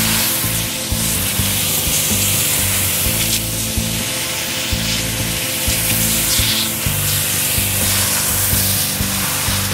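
Spray from a Briggs & Stratton 2,000 PSI electric pressure washer hissing steadily as the jet blasts along wood and wet asphalt. Background music with held bass notes plays underneath.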